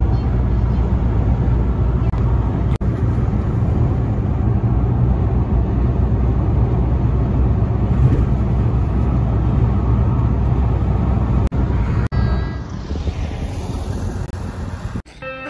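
Road noise inside a moving car's cabin at expressway speed: a steady low rumble of tyres and engine. About twelve seconds in, it gives way to quieter street ambience, and music begins at the very end.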